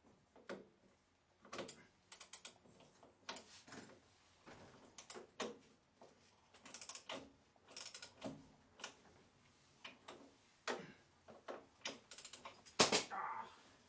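Hand tools clicking and clinking against the bumper mounting hardware of a 1974 BMW 2002 during bumper removal, in short irregular bursts of light metallic clicks. Near the end there is one louder clank with a brief ring.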